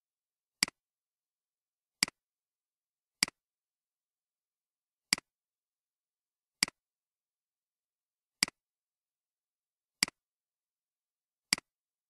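Computer mouse button clicking eight times, irregularly one to two seconds apart, each click a quick press and release.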